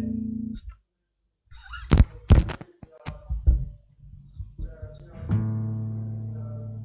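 A held instrumental chord fades out. After a short pause come several sharp knocks and clicks, and about five seconds in a new chord sounds and rings on, slowly fading.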